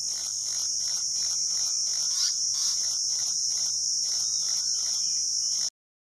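Steady high-pitched insect drone, pulsing at about three beats a second, cutting off abruptly near the end.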